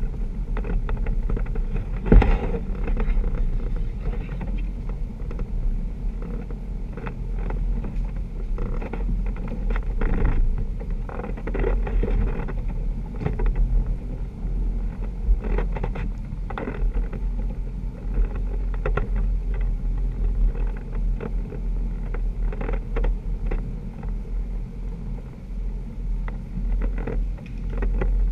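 Off-road Jeep's engine running at low trail speed with a steady low rumble, over scattered knocks and rattles from the vehicle working over rough ground; one sharp knock about two seconds in.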